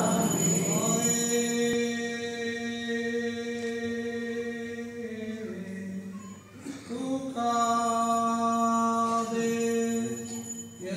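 Orthodox liturgical chant: a voice holding long, drawn-out notes, with a short break about halfway.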